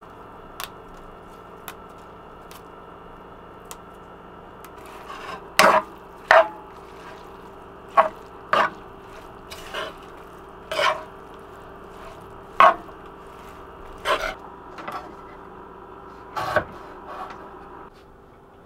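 Spatula stirring minced salmon larb in a frying pan: a run of short scraping strokes against the pan, about one a second, starting about five seconds in, with a few light clicks before it over a steady hum.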